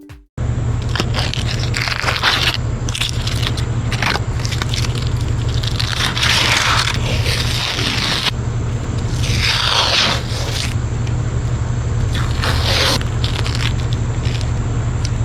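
A steady low machine hum with a fast pulse, over which come repeated rasping scrapes, several of them a second or two long.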